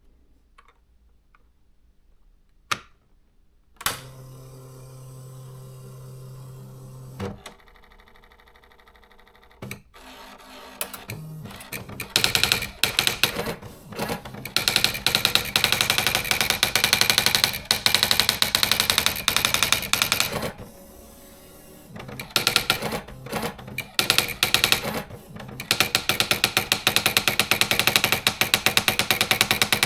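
Olivetti Praxis 100 electronic typewriter: after a click and a few seconds of steady hum and whirring, it types in fast runs of rapid strikes, with two short pauses.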